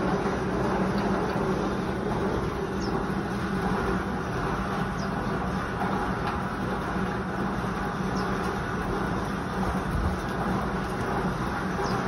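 Electric fan running steadily: a constant whir with a low hum underneath.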